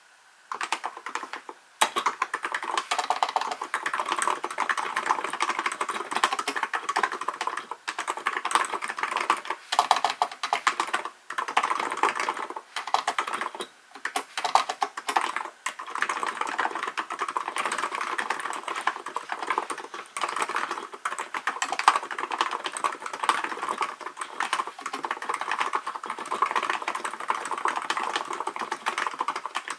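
Typing on a Hansung GK898B electrostatic-capacitive (non-contact) keyboard: a fast, continuous run of key clicks with a few brief pauses, starting about half a second in.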